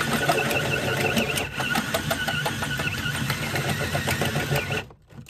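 Cordless drill running under load, cutting through a steel brace beneath a van's sheet-metal floor, with a steady whine and an irregular rattling chatter. It stops briefly near the end and starts again.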